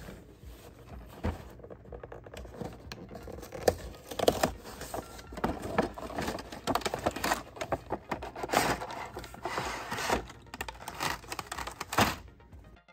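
A die-cast car 8-pack being unboxed by hand: irregular scraping, crinkling and clicking of the cardboard box and the clear plastic blister tray of cars, with a louder clack near the end.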